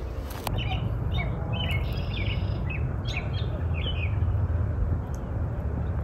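Small birds giving a series of short chirps in the first few seconds, over a steady low rumble that is the loudest sound.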